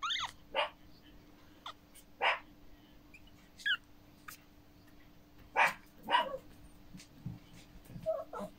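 Prague Ratter puppies, 16 days old, squeaking and whimpering in short separate cries, about eight of them, some sliding down in pitch.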